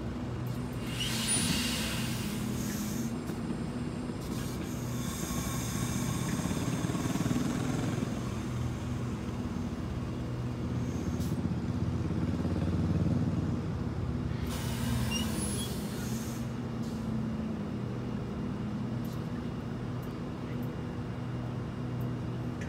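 Diesel locomotive engines running steadily with a low hum, while the air brakes hiss in three spells: about a second in, again for a few seconds from about five seconds, and near fifteen seconds, as the damaged train is inched along.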